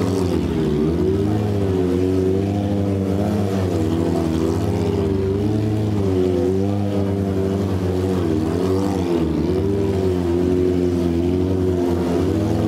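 Stunt sport motorcycle engine running, its revs rising and falling again and again under the rider's throttle.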